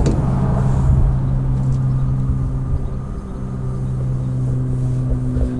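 Peugeot Expert 1.6 van running at idle: a steady low mechanical hum with a dip about three seconds in.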